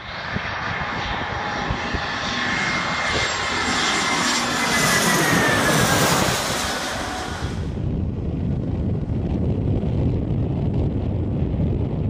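Airbus A320-211's CFM56 turbofan engines passing low overhead on final approach: a loud jet whine whose tones fall in pitch as the airliner goes by. Just before the end of the pass the high whine cuts off suddenly, leaving a low rumble with wind buffeting the microphone.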